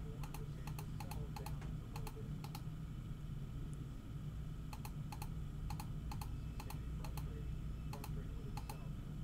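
Computer keyboard typing in short runs of keystrokes with pauses between them, over a steady low hum.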